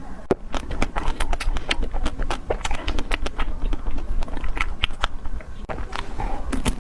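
Close-miked biting and chewing of a Magnum ice cream bar, its chocolate coating cracking in many quick crunches.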